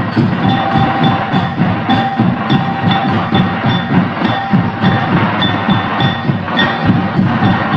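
Folk dance music driven by drums, beating a fast, even rhythm of about three to four strokes a second, with a repeated high melodic tone held over the beat.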